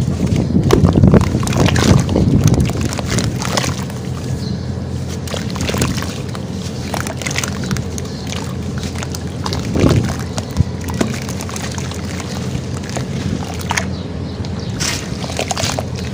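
Hands crumbling and squeezing wet sand-cement chunks in a plastic tub of water: sloshing with gritty crackles, loudest in the first couple of seconds.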